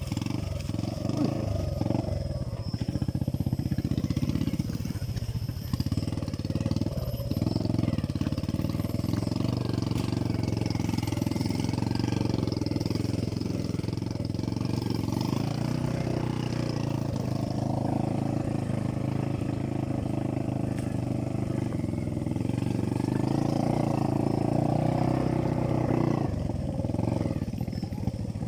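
Motorcycle engine running close by as it rides along a dirt jungle trail, its note shifting up and down with the throttle.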